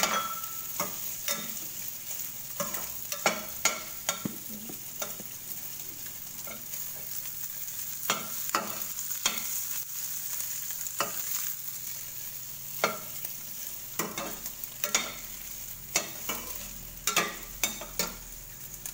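Shredded chicken and garlic sizzling in oil in a stainless steel wok, with irregular clinks and scrapes of a metal spatula stirring against the pan.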